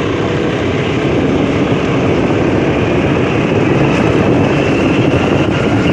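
A motorbike running along a road, heard from on the bike: a steady mix of engine noise and wind rushing over the microphone.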